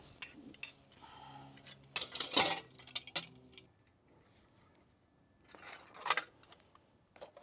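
Light metal clinks and rattles of heat shield clamps and a chrome heat shield knocking against a chrome Vance & Hines Big Radius exhaust header pipe as they are fitted by hand. The clinks are loudest about two seconds in, pause, then come again around six seconds.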